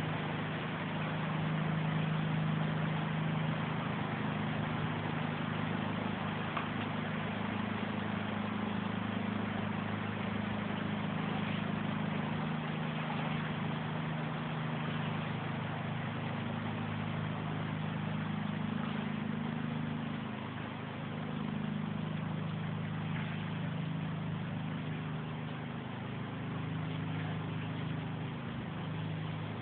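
Torrential rain pouring down steadily, with a constant low rumble under the hiss of the water.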